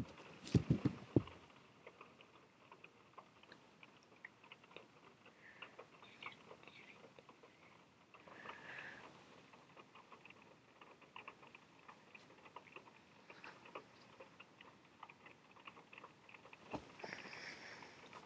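A cat batting at and biting a dangled wristwatch strap. There are a few dull thumps about half a second in, then faint, scattered light taps, clicks and rustles.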